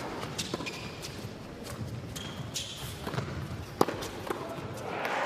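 Tennis rally: a ball struck back and forth by racquets, with sharp hits about a second apart, the loudest near the end. Crowd applause starts just before the end as the point is won on a volley.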